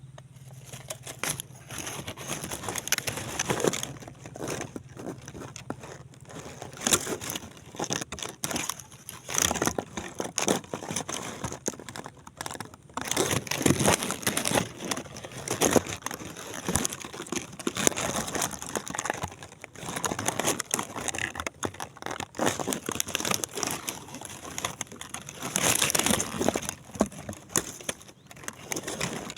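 Irregular crinkling and rustling in uneven bouts, like plastic or something similar being handled close to the microphone.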